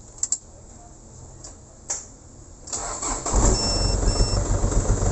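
A Hino Dyna truck's diesel engine, running with its air filter removed, is cranked and catches about three seconds in, then settles into a steady idle. A couple of clicks come before it, and two short beeps sound just after it starts.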